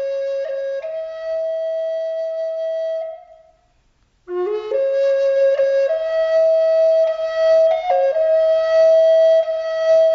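A flute playing two slow phrases, each climbing in a few steps from a low note to a long held note. A short pause separates the two phrases about three and a half seconds in.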